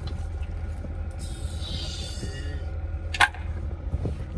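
Steady low drone of the fishing boat's engine, with a hissing rush about a second in and one sharp click just after three seconds.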